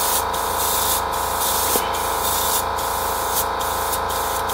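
Airbrush spraying paint, its hiss coming and going about twice a second over a steady hum. The airbrush is binding up, clogged with leftover yellow paint that wasn't cleaned out.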